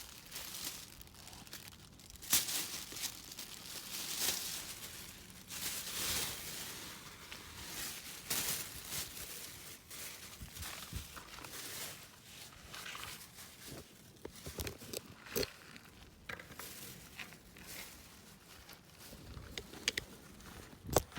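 Packaging crinkling and rustling in irregular bursts as items are handled, with scattered light clicks and a few sharper knocks near the end.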